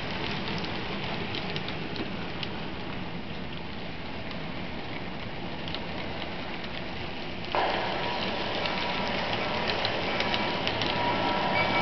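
HO-scale model freight cars rolling along the track: a steady rattling rush dotted with small clicks. About seven and a half seconds in, a louder sound with several steady tones cuts in suddenly.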